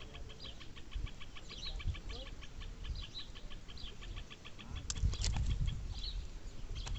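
Birds calling in short chirps over a fast, even series of ticks. A few sharp clicks and low rumbling handling noise come in about five seconds in.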